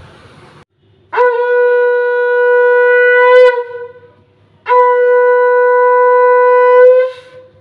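Conch shell (shankha) blown in two long, loud blasts of about two and a half seconds each, both held on one steady note. This is the conch sounded to welcome a deity's idol into the home.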